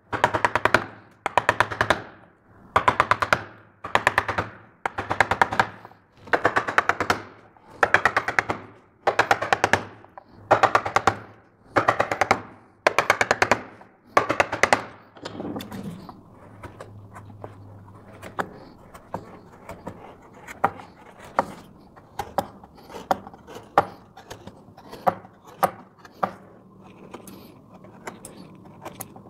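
Round-headed mallet driving a wood-carving gouge into a board: loud bursts of rapid tapping, about one burst a second. After about fifteen seconds the tapping stops and only scattered light clicks and scrapes remain as the gouge is pushed through the wood by hand.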